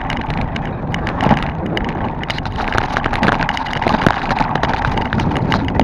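Bicycle riding over a gravel road: tyres crunching and the bike and its load rattling with many small knocks, over wind rumbling on the microphone.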